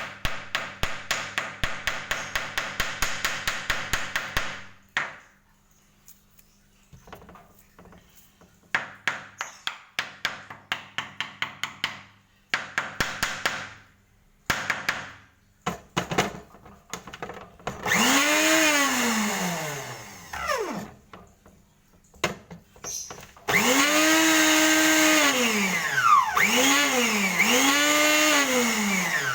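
Several bursts of rapid knocking, then an electric power tool's motor spinning up and winding down again and again, its whine rising, holding and falling with each squeeze of the trigger.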